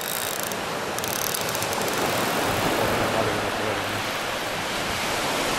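Steady rushing of surf breaking on a sandy beach, with a few faint ticks near the start.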